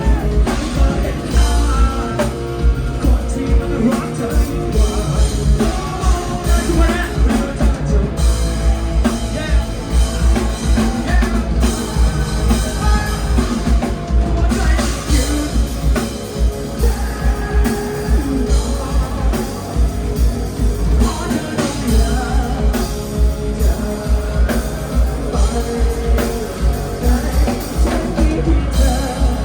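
Live rock band playing a song, with a singer over drum kit and guitar and a steady pulsing beat.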